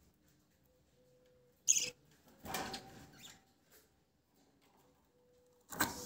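Two budgerigars nibbling lettuce leaves from a metal bowl: scattered soft crunching and rustling bursts, with one short high chirp a little under two seconds in.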